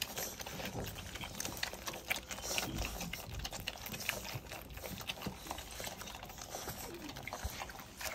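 German Shorthaired Pointer puppies suckling at their mother's teats: a quick, uneven run of small wet sucking and smacking clicks.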